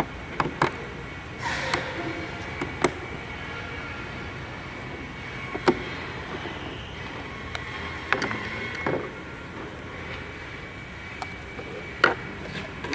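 Scattered sharp clicks and knocks of a plastic turn signal and marker lamp housing and its clips being worked into place by hand, over a steady background hum.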